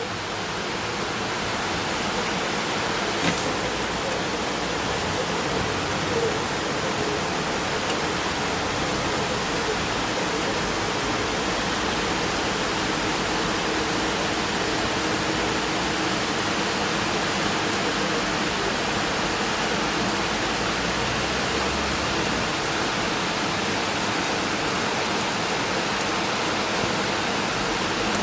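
Steady summer rain shower, an even hiss of falling rain.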